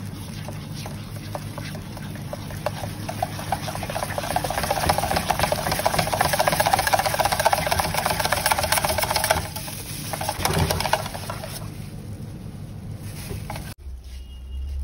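Electric whisk beating red velvet waffle batter in a stainless steel pan: a steady motor whir with the wire whisk rattling and ticking against the metal, loudest around the middle. Near the end it cuts off abruptly, leaving a low hum.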